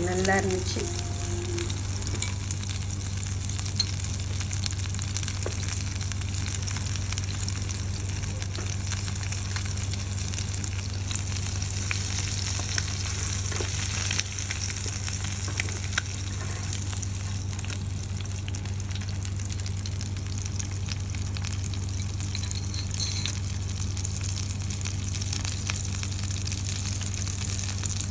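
Rolled egg omelette frying on a ridged grill pan: a steady sizzle, with a steady low hum underneath and a few light clicks of metal tongs as it is turned.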